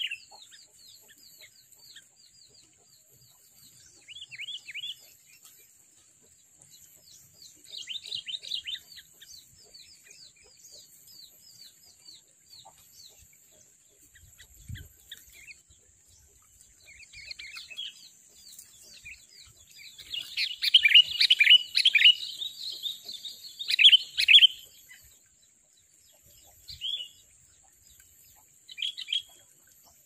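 Sooty-headed bulbuls (kutilang) calling: bursts of quick, falling chirps that grow busiest and loudest about two-thirds of the way through, over a steady high-pitched whine.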